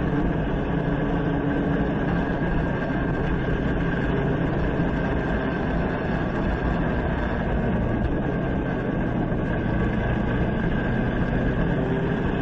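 Gearbox racing kart's engine heard onboard, running high in the revs with a steady note as the kart takes a corner.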